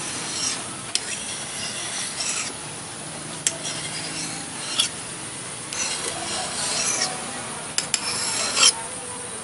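Small hatchet's steel edge being sharpened by hand: about five separate scraping strokes of an abrasive along the blade, each a second or so long, with light clicks between them.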